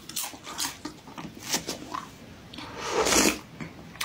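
Close-up mouth noises of a person eating: wet chewing clicks and smacks, then about three seconds in a louder, half-second slurp from a bowl of soup.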